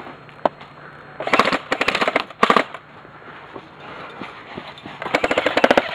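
Airsoft guns firing: a single shot, then a rapid burst of clicking shots lasting about a second and a half, and another rapid burst starting about five seconds in.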